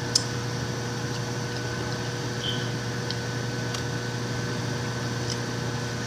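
Microwave oven running with a steady hum, with a sharp click just after the start and a few faint ticks.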